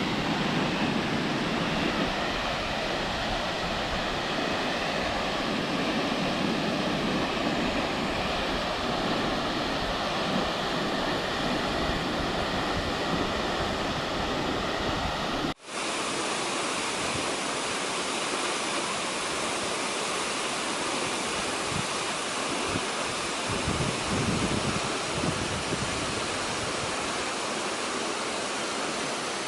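Steady rush of water pouring down Haew Narok waterfall. About halfway through it cuts out for an instant and comes back with a slightly different tone.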